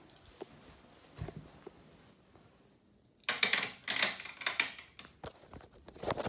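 Quiet at first, then from about three seconds in a rapid run of sharp clicks and clatter from small hard objects being handled, with a few more scattered clicks near the end.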